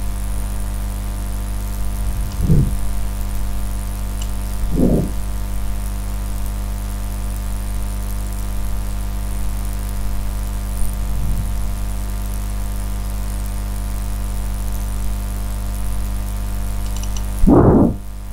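Steady electrical mains hum on the recording, a low buzz with a stack of overtones, broken by four short low thumps, the loudest near the end.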